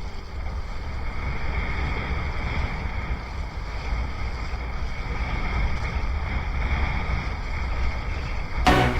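Strong wind buffeting the microphone over a rush of water, from a camera on a windsurfer sailing fast in typhoon winds. Music with a beat comes in right at the end.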